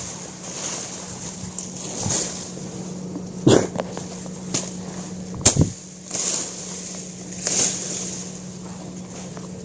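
Tall grass and leaves swishing and brushing against the microphone while walking through dense undergrowth, with several louder swishes and a sharp snap about five and a half seconds in. A steady low hum runs underneath.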